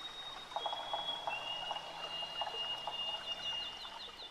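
Faint nature ambience: thin, steady high whistling tones that come in one after another, light scattered ticking, and near the end a quick, even run of short chirps.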